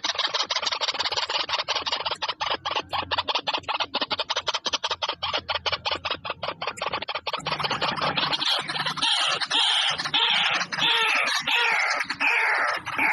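Birds calling loudly and harshly: a fast run of rasping notes, about six a second. A little over halfway through, this gives way to a string of longer calls that each fall in pitch.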